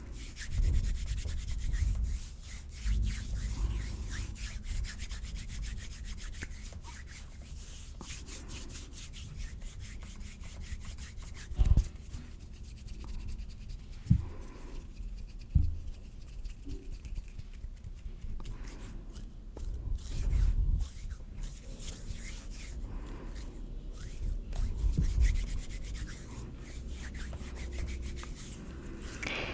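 Hands rubbing and brushing together close to the microphone, a continuous soft friction crackle broken by a few low thumps.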